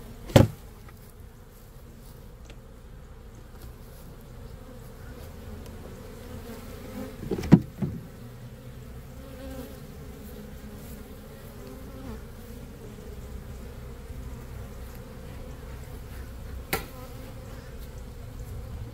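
Honey bees buzzing steadily in a mass as a nuc colony is moved into its new hive, with three sharp knocks: about half a second in, about seven and a half seconds in, and near the end.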